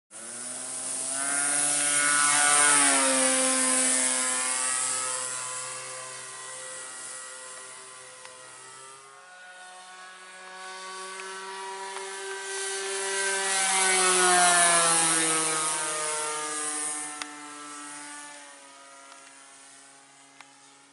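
Radio-controlled Hangar 9 Ultra Stick model plane with an O.S. GT15 single-cylinder two-stroke petrol engine turning a 14x8 wood propeller, running as the plane takes off and flies. The engine note swells and drops in pitch as the plane passes close about two and a half seconds in, then fades. It swells and drops in pitch again on a second pass around fourteen seconds in, then fades away.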